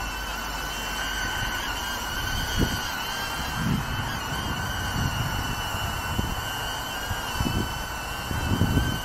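Small HoverAir X1 camera drone's propellers giving a steady high-pitched whine that wavers slightly in pitch, with irregular low puffs of wind buffeting the microphone.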